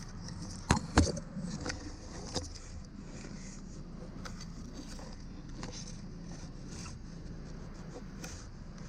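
Repeated short scraping strokes against a wooden wall, with two sharp knocks about a second in, over a steady low hum.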